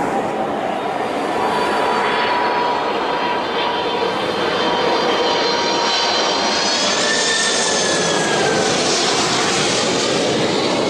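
Four-engine Boeing 747-400F jet airliner engines running loud and steady, with high whining tones that rise and then fall in pitch as the aircraft passes.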